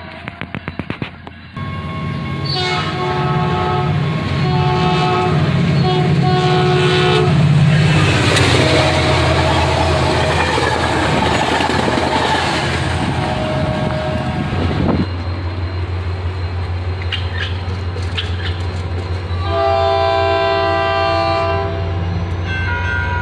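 A train horn sounds a string of blasts, followed by the rushing noise of a passing train. Then comes a steady low rumble and another horn blast.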